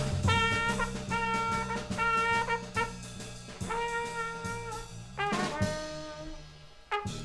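Jazz trio music: a trumpet plays a phrase of short held notes over bass and drums. The playing thins out and stops near the end, closing with one last struck hit.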